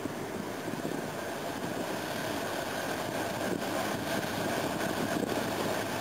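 Steady shipyard machinery noise: a continuous hiss with a low drone and no distinct events.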